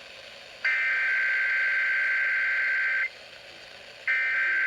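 Emergency Alert System SAME header data bursts: a warbling, buzzy digital data tone lasting about two and a half seconds starts under a second in, and after a one-second gap a second identical burst begins. These bursts open an EAS Required Monthly Test and carry its coded header, over a low radio hiss.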